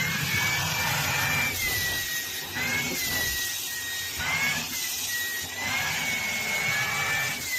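A small motor running steadily: a whine that wavers slightly up and down in pitch over a rushing hiss.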